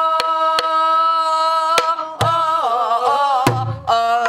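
Korean namdo folk singing: a woman's voice holds one long, steady note, then breaks into a wavering ornament about two seconds in, and starts a new phrase near the end. A buk barrel drum struck with a stick keeps the beat under it, with a few sharp taps and two deep thumps.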